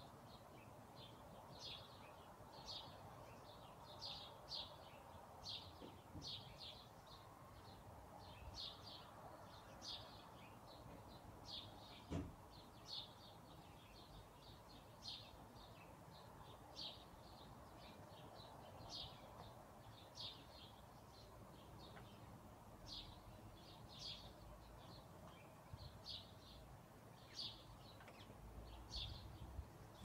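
Small songbirds giving short, high chirps, about one or two a second in irregular runs, over a faint steady hiss of background noise. A single sharp click sounds about twelve seconds in.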